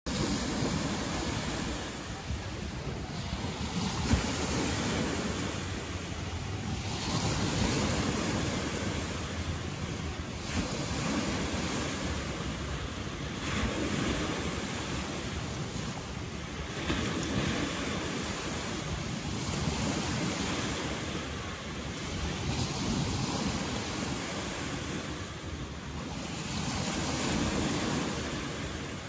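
Small waves breaking and washing up a sandy beach, the surf swelling every three to four seconds, with wind buffeting the microphone. A single sharp knock about four seconds in.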